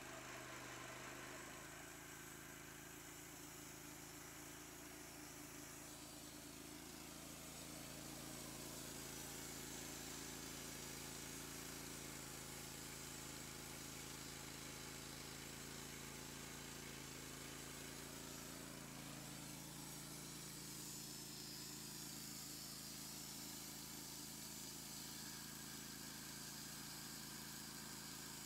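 Wood-Mizer LT15 Wide portable bandsaw mill running steadily, its motor driving the band blade through a walnut log.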